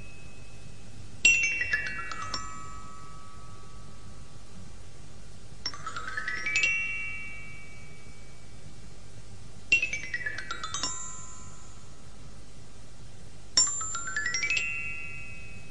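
Title music: a bell-toned mallet instrument, glockenspiel-like, plays four quick runs of ringing notes about four seconds apart, alternately running down and up the scale, over a steady background hiss.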